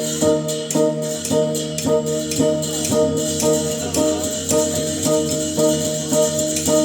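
Traditional northern Thai (Lanna) ensemble music: gongs ringing and cymbals clashing in a steady beat, with drums underneath.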